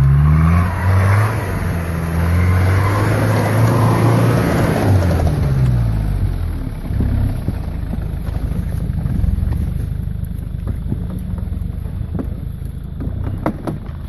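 Mitsubishi Pajero off-road 4x4 engine revving hard on a snowy climb, its tyres spinning and churning snow. After about six seconds the revs drop and the engine runs lower and quieter, with a few knocks near the end.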